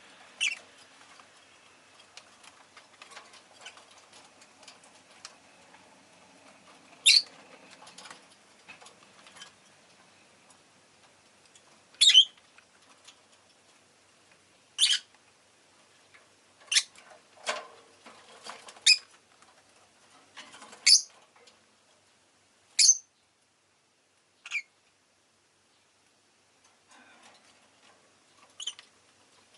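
Rosy-faced lovebird giving short, sharp, high-pitched chirps, about a dozen spread irregularly a second or several apart, with faint small ticks and rustles between them.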